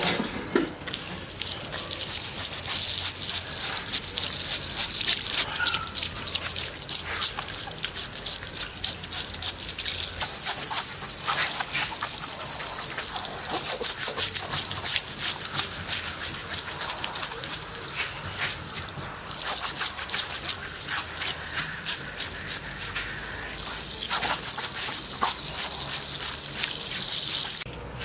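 Water splashing and trickling, a steady hiss of moving water with many small clicks and drips.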